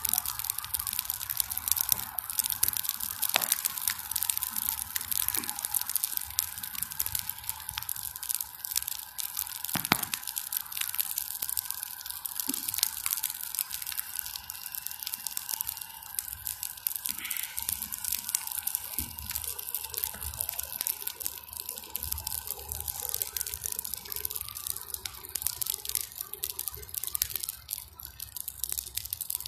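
Bonfire of weeds crackling, a dense run of small pops and snaps with a louder snap about ten seconds in.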